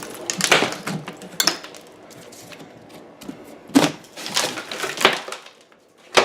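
Old plaster and wood lath being broken away from a wall: an irregular series of cracks, crunches and sharp knocks, the loudest one near the end.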